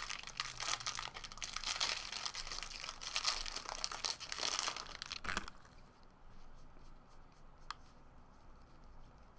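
A trading-card pack wrapper being torn open and crinkled by hand, a dense crackling that stops about five and a half seconds in, leaving only a few faint ticks of cards being handled.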